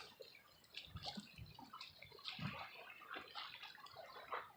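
Faint water splashing and dripping, with scattered small ticks and a few soft low thumps.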